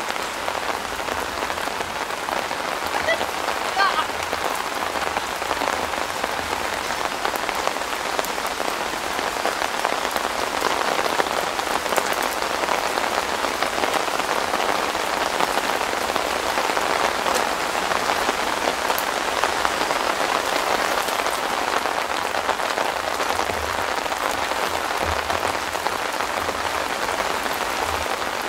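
Steady rain falling on a tent, heard from inside the tent: an even hiss of rain dotted with individual drop ticks.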